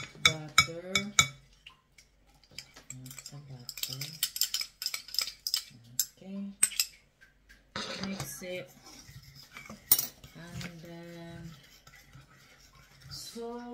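Metal spoon clinking and scraping against a glass mixing bowl as banana bread batter is stirred, with a quick run of clinks at the start and irregular clinks after.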